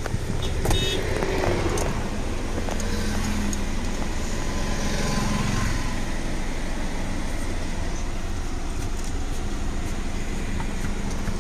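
Steady hum and rumble of a car heard from inside its cabin.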